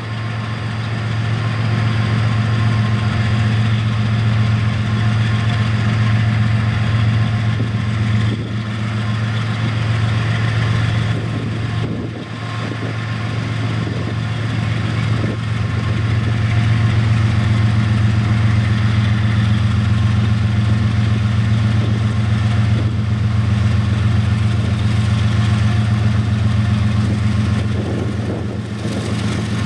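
Diesel freight locomotives running as the train approaches: a steady low engine drone with a fine even pulse, growing a little louder about halfway through.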